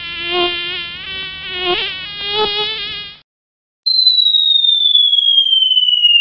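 Cartoon sound effect of a buzzing fly or mosquito: a wavering buzz for about three seconds that cuts off abruptly. After a short gap, a cartoon falling whistle begins, one clear tone sliding steadily down in pitch.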